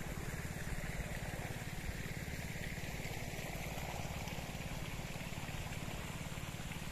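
Small engine of an irrigation water pump running steadily, a low, even chugging.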